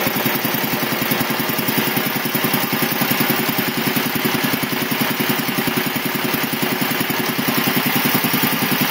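Quincy QR-325 two-stage air compressor pump, belt-driven by a 5 hp single-phase electric motor at about 621 rpm, running steadily with an even, rapid pulsing beat while it pumps up the tank toward 50 psi. It runs fairly quietly, by no means loud.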